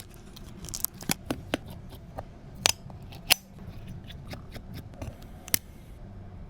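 Irregular sharp clicks and taps of small repair tools and parts on a MacBook being worked on, about a dozen in all. The loudest two come close together near the middle.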